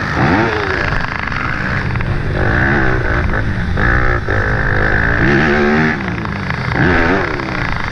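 Yamaha YZ250F's 250 cc four-stroke single-cylinder engine under hard riding, its pitch climbing and dropping several times as the rider accelerates and shifts through the gears, heard from a helmet-mounted camera.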